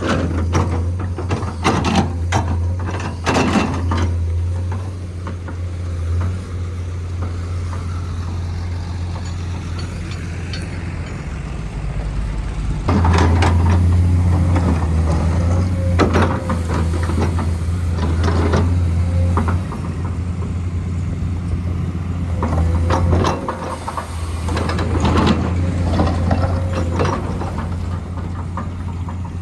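Heavy diesel road-construction machinery running steadily with a deep hum, with bursts of metallic clanks and knocks near the start, about halfway through and near the end.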